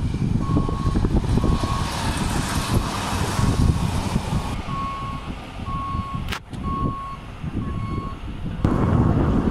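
Reversing alarm on construction plant beeping about once a second, each beep a steady half-second tone, over the rumble of a diesel multiple-unit train passing beneath. A sharp click about six seconds in, and a louder rush of noise near the end.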